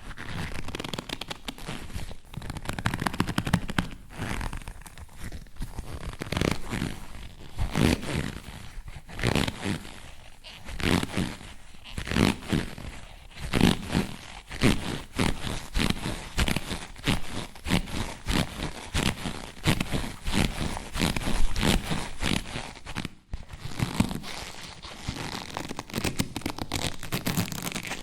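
Leather-like stretching creaks and squeaks from a glove being pulled and stretched close to the mic, in many irregular strokes with a short break about 23 seconds in.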